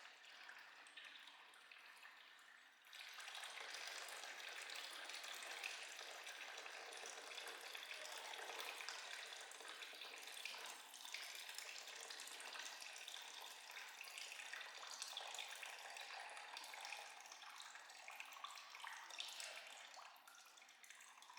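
Faint, steady hiss of running or spraying water, starting about three seconds in.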